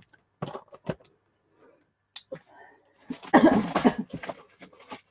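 Craft supplies and their packaging being handled and unpacked: a few light knocks and clicks, then a louder rustle of packaging about three seconds in, followed by more small clicks.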